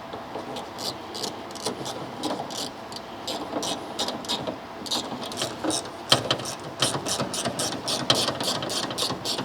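A hand ratchet clicking in a quick run of strokes, about three to four clicks a second, as the screws holding the window regulator motor are done up.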